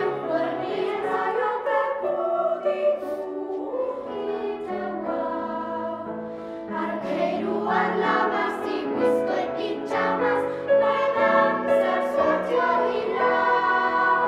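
Children's choir of young girls singing together, holding long notes.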